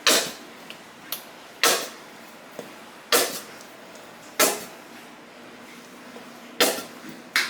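A spoon knocking sharply against a dish six times at uneven intervals, as mayonnaise is scooped and tapped off into a mixing bowl.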